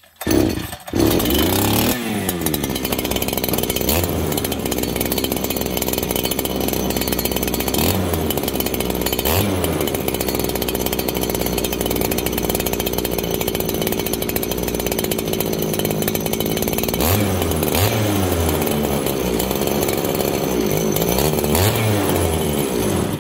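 Farmertec 288 two-stroke chainsaw catching and running steadily, its engine speed briefly rising and falling several times, then cutting out suddenly at the end: the engine dies, which the owner puts down to it running out of fuel.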